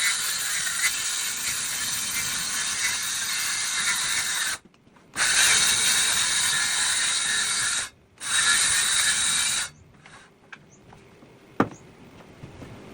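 Track saw running and cutting through a wooden board in three spells, each breaking off abruptly. One sharp click comes near the end.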